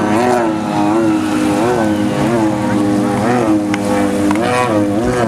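Jet ski engines running at high revs, their pitch surging up and dropping back about once a second.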